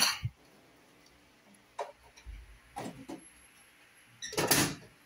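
A few sharp clicks, then a louder clattering knock near the end, from hands handling a sheet-metal circuit breaker panel and its cover door.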